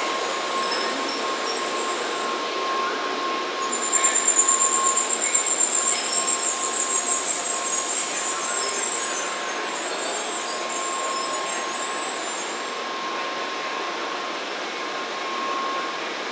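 16-car N700 series Shinkansen train rolling slowly alongside the platform: a steady rumble and hiss with a high-pitched whine that comes and goes, loudest and fluttering from about four to nine seconds in, then easing off as the train runs quieter.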